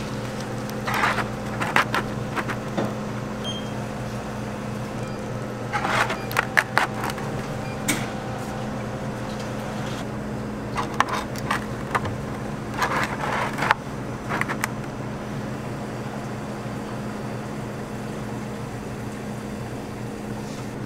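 Bubble waffles being handled and slipped into kraft-paper cones in metal stands: short bursts of paper rustling and light knocks, several times, over a steady low machine hum.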